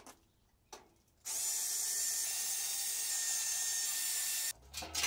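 Cordless drill/driver running steadily for about three seconds, backing a screw out of the sheet-metal fan grille on top of an air-conditioner condenser unit, then stopping abruptly.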